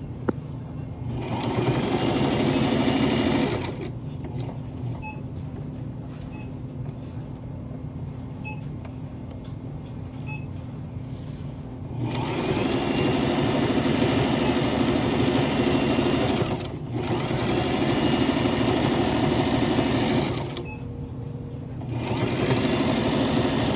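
Household electric sewing machine stitching in four runs of a few seconds each: one starting about a second in, then after a long pause three more in close succession.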